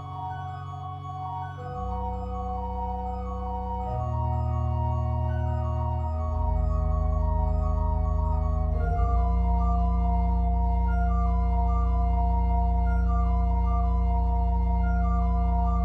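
Pipe organ improvisation: sustained low pedal notes that change every couple of seconds under a slowly moving line of held chords, the full sound swelling louder about halfway through.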